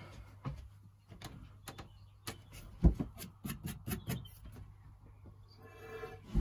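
A scattered series of light knocks and clicks, the loudest about three seconds in and several close together a little after, from plastic plumbing parts and tools being handled; a short pitched sound comes near the end.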